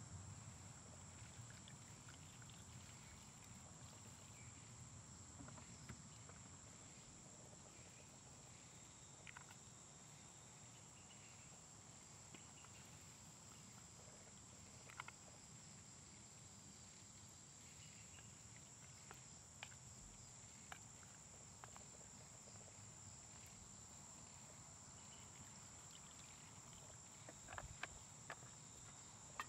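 Near silence: faint outdoor ambience with a steady high-pitched hum, broken by a few small clicks and ticks, a little more of them near the end.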